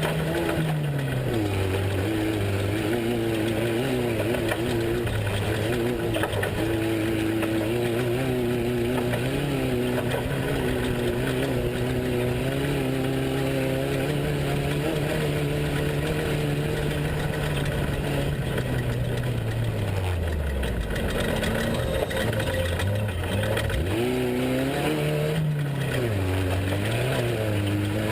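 Off-road race truck engine running hard at a mostly steady pitch. About twenty seconds in the revs fall away to a low note, then rise again with a few quick up-and-down revs before holding steady.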